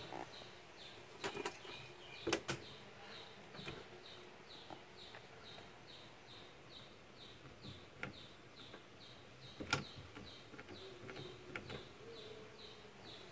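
A small bird chirping over and over, about two short high chirps a second, with a few sharp clicks, the loudest a little over two seconds and nearly ten seconds in.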